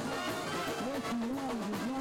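Band music: a wavering melody line over a light, steady percussion beat, in the manner of a village brass band (banda) playing at a bull-riding fiesta.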